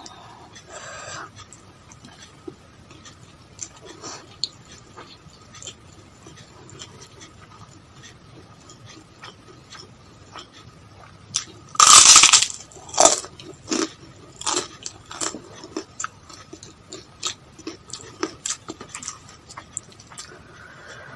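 Close-miked eating: scattered small mouth and utensil clicks, then one loud crunching bite about halfway through, followed by irregular crunching and chewing clicks.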